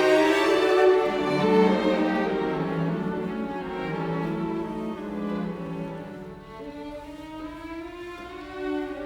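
Background music of bowed strings, violin and cello, playing slow held notes that grow softer toward the end.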